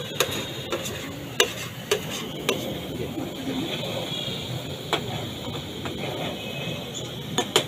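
Flat metal spatula scraping and clacking against a large iron tawa as chicken masala is stirred and turned, several sharp strikes at irregular intervals over a steady frying sizzle.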